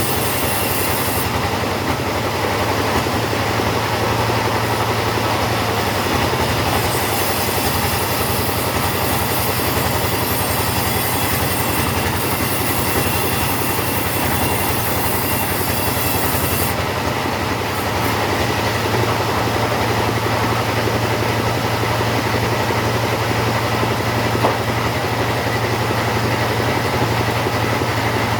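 Chainsaw running steadily under load, ripping a teak log lengthwise into boards. The high hiss of the cut drops away and comes back a few times.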